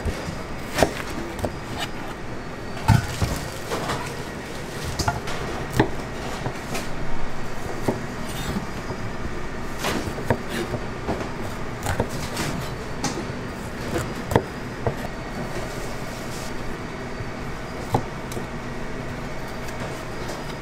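Kitchen and dining clatter: sharp knocks and clinks, one every second or two at uneven spacing, over a steady background hum.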